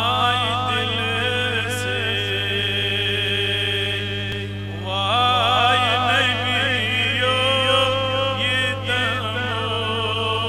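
A man's solo voice singing a Kashmiri naat, a devotional poem in praise of the Prophet, into a microphone, in long ornamented held notes with a short break about four seconds in. A steady low hum runs underneath.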